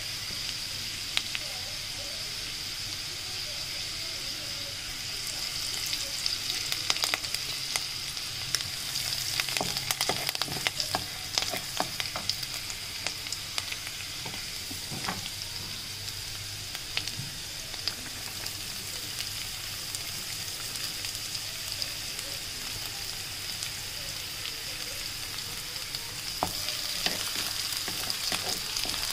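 Slivered garlic sizzling in hot oil in a non-stick wok, stirred with a wooden spatula. A steady sizzle with scattered sharp pops and spatula scrapes and taps, busiest about a quarter of the way in and again near the end.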